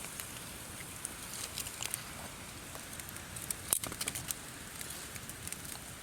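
Wood campfire crackling: scattered sharp pops and snaps over a steady hiss, with the loudest pop a little past halfway.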